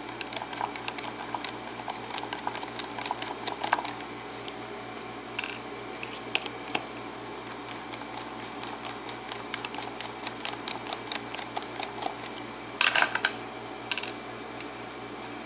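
Small metal clicks and scrapes from a pin-tumbler cylinder lock being taken apart, its plug and pins being worked out. There are louder brief clatters about 13 seconds in and again at the very end.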